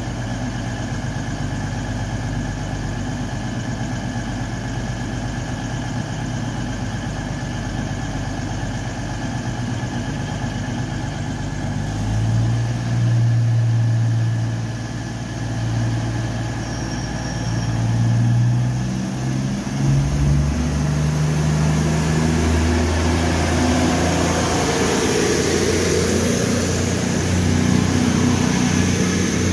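Train at the station with its engine running, a steady low hum. The note steps up about 12 seconds in and shifts again near 20 seconds, and a rising rush of noise builds toward the end.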